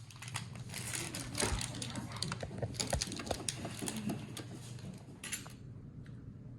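Small screws and metal and plastic mounting parts of a CPU cooler being handled, giving irregular light clicks and ticks that thin out about five seconds in, over a faint steady low hum.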